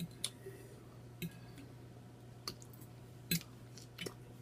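Close-miked mukbang eating sounds: about half a dozen short, sharp smacks and clicks spread apart, the loudest a little after three seconds in, over a steady low hum.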